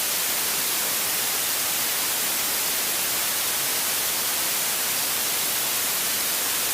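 Steady hiss of static on the aircraft intercom audio feed, constant in level, with no distinct engine tone.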